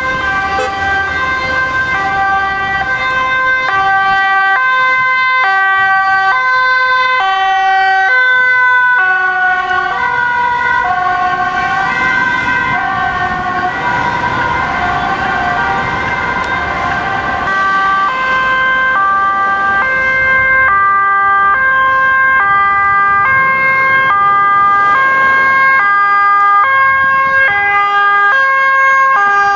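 Dutch ambulance two-tone siren sounding continuously, alternating between a high and a low note about twice a second, over a steady tone.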